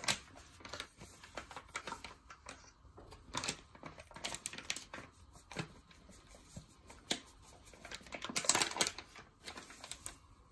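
A small steel bowl scraping and clinking against a steel mixing bowl as flour is scooped and tipped in, with a plastic flour packet rustling. Scattered light clicks and scrapes, busiest about eight to nine seconds in.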